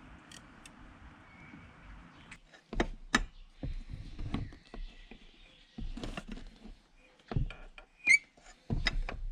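Irregular knocks and clunks of hand tools on metal engine parts, about eight in all, with a short high squeak about eight seconds in: work to free a stuck, corroded water pump.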